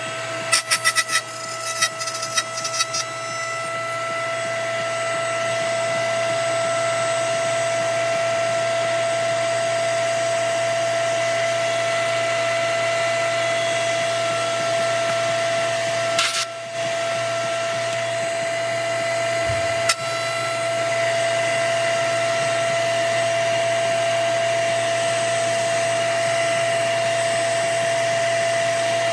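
Table-mounted router spinning at a steady full speed with a constant high whine, just after spinning up. There are a few sharp knocks in the first few seconds, and a short burst of noise about 16 seconds in.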